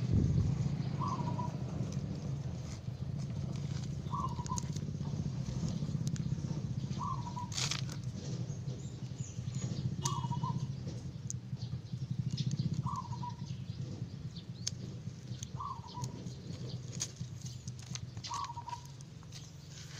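A bird repeating one short chirp about every three seconds, over a steady low drone.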